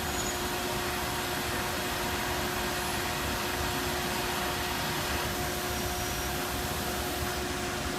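Steady machinery noise in an automated part-handling and welding cell: a constant hiss with a low, even hum.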